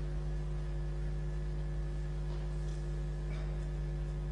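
Steady electrical mains hum, a low buzz with several held tones above it, with only faint indistinct sounds under it and no ball strike.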